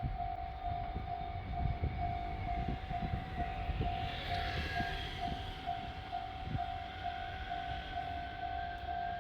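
Japanese railway level-crossing warning bell ringing, a single tone repeating at a steady beat, over the low rumble of a train.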